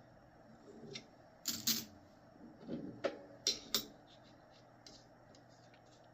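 Nickels clicking lightly as they are handled and set down on a hard surface: a scatter of short sharp clicks, loudest as two quick pairs about a second and a half and three and a half seconds in, with fainter ticks after.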